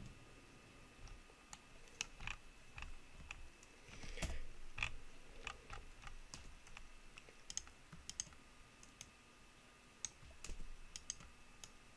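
Faint, irregular clicking of a computer mouse and keyboard keys.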